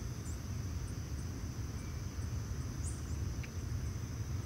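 Outdoor ambience of insects: a steady high drone with faint regular ticks, a few short bird chirps, all over a steady low rumble.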